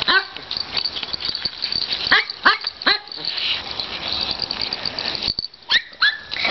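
Small dog barking in short, high yips that drop in pitch: two at the start, a run of about four between two and three seconds in, and two more near the end.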